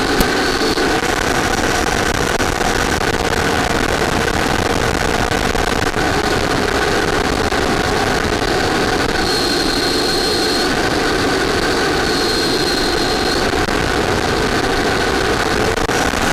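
Steady rushing engine noise of an RC jet model in flight. A faint high whine comes and goes twice in the middle.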